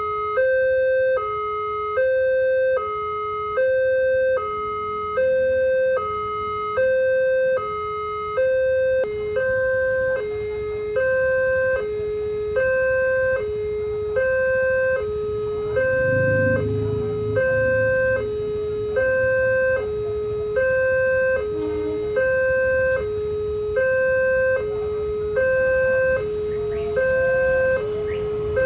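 Railway level-crossing alarm sounding: an electronic two-tone signal alternating steadily between a higher and a lower note about once a second, warning that the crossing gates are closing for an approaching train.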